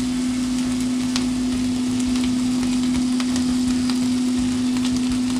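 Broccoli, onion and garlic sizzling in olive oil in a sauté pan over medium heat, with a few light clicks about once a second. A steady low hum runs underneath.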